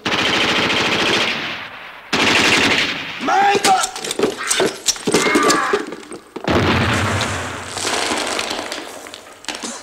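Three long bursts of automatic gunfire: the first two come back to back, and the third follows after a pause of about two seconds. Men's voices shout in the gap.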